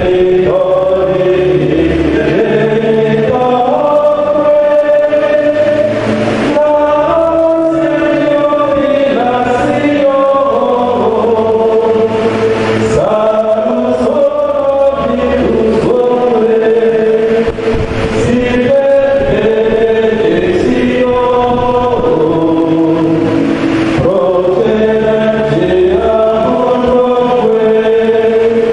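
Church choir singing a slow, chant-like hymn, its held notes moving in steps over sustained low bass notes.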